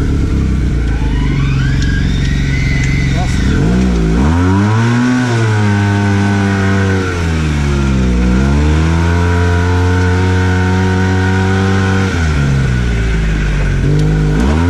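Arctic Cat Wildcat Trail 700 side-by-side engine heard from the cab, revving up and down while driving on sand. The pitch climbs about four seconds in, dips twice, around eight and twelve seconds, holds steady in between, and climbs again near the end. A thin rising whine sounds in the first few seconds.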